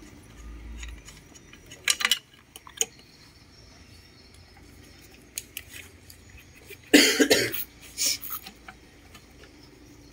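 Small metallic clicks and taps from hands working the spark plug and fittings of a two-stroke brush-cutter engine, with a sharper cluster about two seconds in. Later a person coughs twice in quick succession, the loudest sound.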